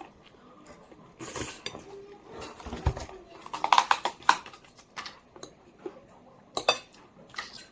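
Cutlery clinking and scraping against a plate while someone eats macaroni, in scattered short knocks and scrapes.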